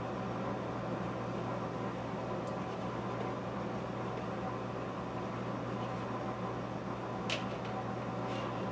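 Steady low electrical hum and hiss of room tone, with one short click about seven seconds in.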